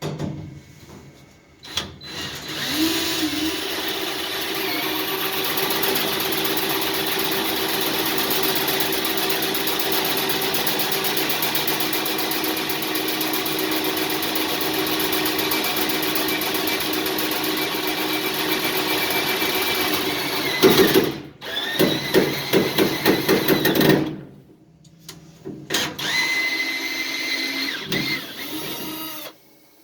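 Power drill running steadily for about eighteen seconds, then pulsed in short bursts, then run once more near the end.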